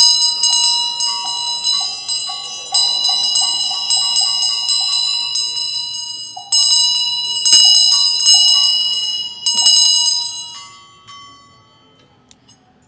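Buddhist ritual bells rung in quick repeated strikes, with steady high metallic ringing and a few louder strikes. The ringing dies away over the last couple of seconds.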